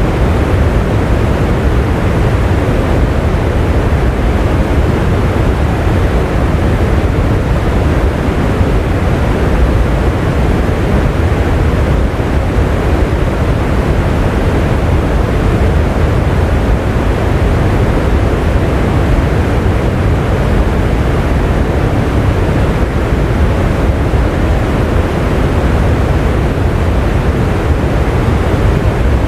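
Steady rain: an even, unbroken rush of noise, heaviest in the low end.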